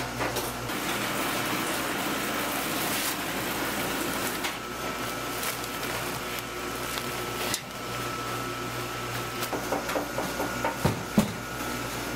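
Noodle-making machinery running with a steady whirring hum and a thin high whine, and a few sharp knocks near the end.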